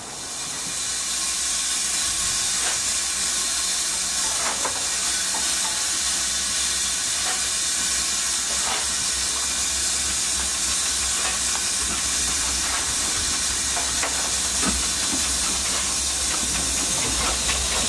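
BR Standard Class 2 2-6-0 steam locomotive 78018 approaching with a loud, steady hiss of escaping steam, light clicks coming more often near the end as it nears.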